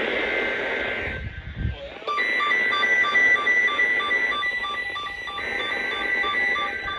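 A weather radio receiver's electronic alert alarm sounds: pulsing beeps about four a second, starting about two seconds in over radio static, after the broadcast audio briefly cuts out with a low thump. It is the receiver being set off by the weekly NOAA Weather Radio test alert.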